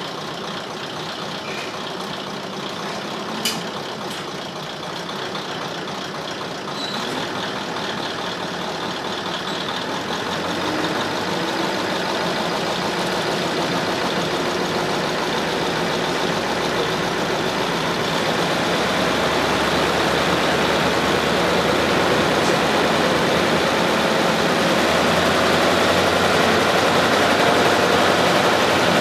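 Diesel railcar heard from inside its passenger cabin: a steady engine rumble and running noise that grows gradually louder, with a single sharp knock about three and a half seconds in.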